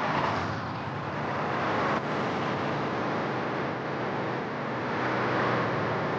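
A car driving along, a steady rush of engine and road noise that swells slightly and fades back.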